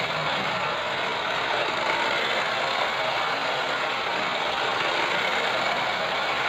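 Radio-controlled Scania model truck running: a steady whir of its electric motor and gears.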